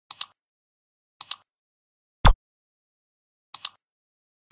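Computer mouse clicks added as a sound effect: several quick press-and-release click pairs, with one heavier click carrying a low thump about two seconds in.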